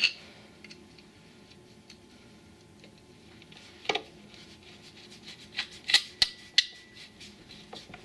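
Sparse metallic clicks and clinks of a screwdriver and screws against the steel rear brake drum cover of a Kazuma Panda ATV as the cover's screws are fitted. There is a sharp click at the start, another about four seconds in, and a quick cluster of clicks around six seconds in.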